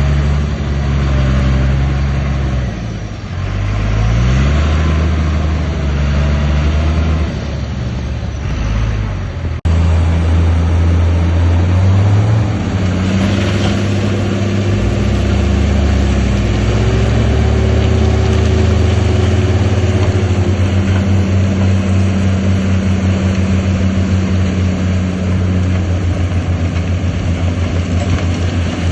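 Diesel engines of heavy earthmoving machines running, with one revving up in a rising pitch a few seconds in. The sound breaks off abruptly about ten seconds in, and a steady engine drone carries on after it.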